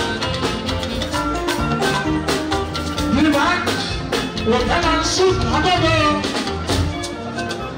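A live fuji band playing, with electric guitars, a drum kit and steady percussion strokes under sustained pitched notes; sliding melodic lines rise and fall about three seconds in.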